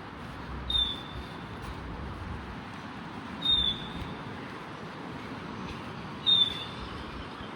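A short, high squeak, falling slightly in pitch, repeats three times at an even beat of about three seconds, over a steady hum of distant traffic.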